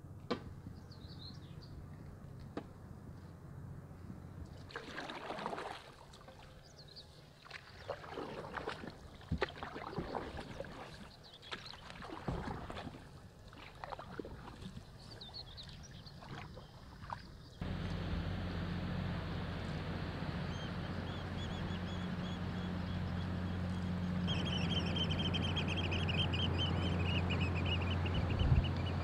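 Canoe paddling: irregular paddle strokes splashing and dripping, with a few sharp knocks of the paddle on the hull. Then, after a sudden change, a steady low rumble with water noise, and a bird calling in quick repeated series near the end.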